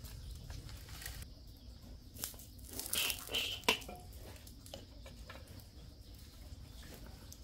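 Wood fire crackling under an iron wok, with a metal ladle scraping and clinking in the wok as it brings in a lump of fat. The scraping is loudest about three seconds in and ends in a sharp knock.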